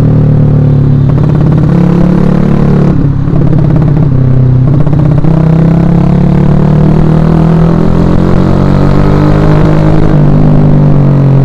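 A Suzuki Shogun Axelo R's single-cylinder four-stroke engine running under way, loud and steady. Its pitch shifts and wavers a few seconds in as the revs change, then steadies, and steps again near the end.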